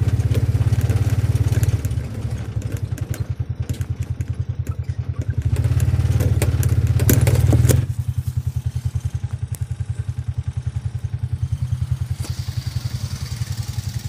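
Motorcycle engine of a tricycle sidecar rig running, a strong even beat that is loud for the first eight seconds or so and then drops to a quieter steady pulse, as when easing off the throttle. Knocks and clatter from the sidecar body come in over it in the first half.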